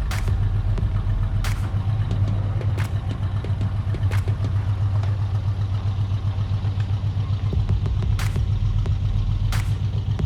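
An engine idling with a steady low rumble, over which come sharp clicks or ticks about every second and a half, with a pause in them midway.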